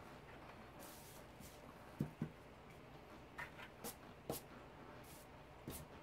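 Quiet handling noise: light taps and knocks, about half a dozen, and soft rustling as the 3D-printed plastic lampshade halves and small items are moved and set down on a cloth-covered table.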